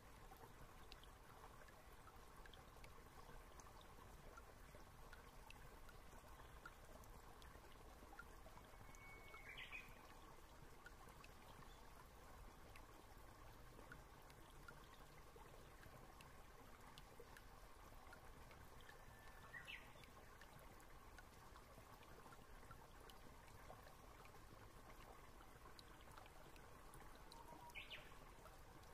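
Near silence: faint steady room tone, with three faint short chirps spread through it.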